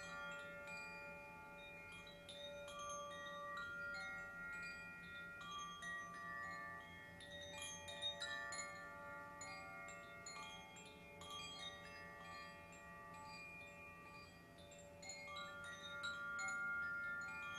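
Tuned chimes ringing softly: many overlapping sustained notes, with fresh notes lightly struck every second or so.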